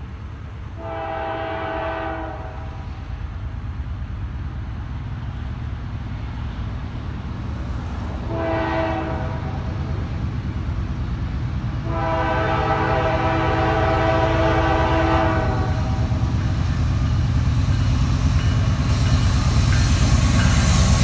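A Norfolk Southern GE Dash 9 freight locomotive sounds its multi-note air horn for a grade crossing: a blast of about a second and a half, a short blast, then one long blast held about four seconds. Under the horn the diesel engines' rumble grows steadily louder as the train approaches.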